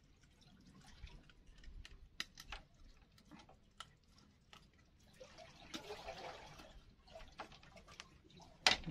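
Faint wet handling sounds and scattered small clicks and taps of hands working a freshly caught fish on a wooden ledge, with one sharp click near the end.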